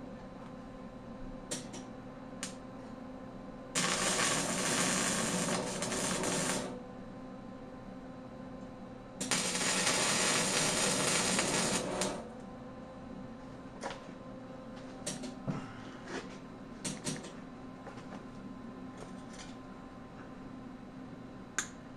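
Gasless flux-core MIG welder running .035 flux-core wire, its arc crackling in two bursts of about three seconds each as tack welds are laid on steel gussets. Faint clicks and handling knocks fall between the bursts.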